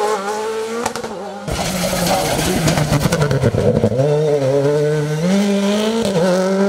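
Rally car engines at full effort. A Škoda Fabia rally car accelerates away out of a hairpin with its engine pitch rising. After a cut comes a rougher, crackling stretch, then a second rally car, a Citroën C3, climbs toward the bend, its engine pitch rising in steps through the gears and dropping back near the end.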